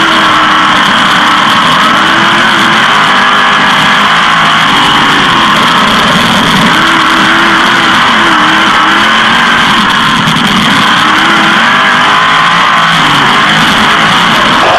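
360 sprint car V8 engines running at race speed, loud and steady, their pitch rising and falling.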